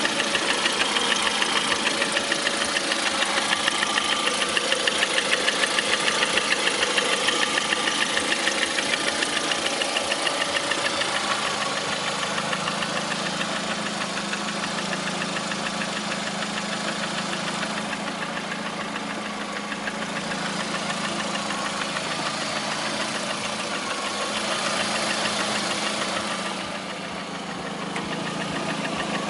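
Lada Priora's VAZ-21126 1.6-litre 16-valve petrol engine running with a fast, even knock in time with the engine. It gets a little quieter about a third of the way in and dips briefly near the end.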